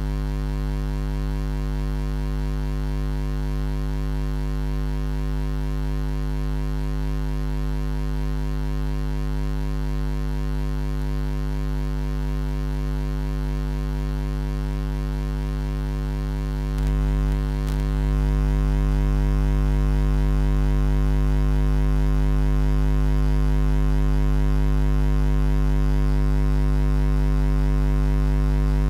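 Steady electrical mains hum, a low buzz with a stack of overtones. It steps up in loudness a little past halfway and then holds steady.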